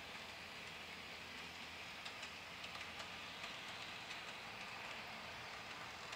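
HO scale model train rolling along the layout's track: a faint, steady hiss with scattered light clicks of the wheels on the rails.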